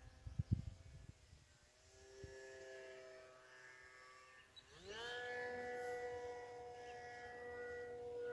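Electric motor and propeller of a small foamboard 3D aerobatic RC plane whining in flight, its pitch shifting with the throttle, then sweeping up sharply about five seconds in and holding a steady higher whine. A few dull low thumps near the start.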